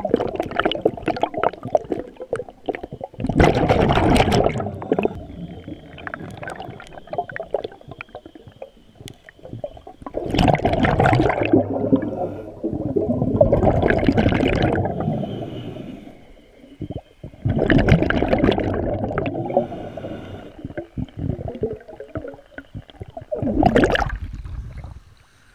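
Underwater bubbling in repeated rushing bursts every few seconds, typical of a scuba diver exhaling through a regulator, heard from inside the camera's waterproof housing. Near the end the water splashes over the camera as it breaks the surface.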